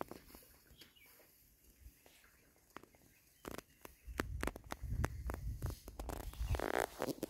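Low rumbling and scattered sharp clicks in an open field, then a short goat bleat near the end.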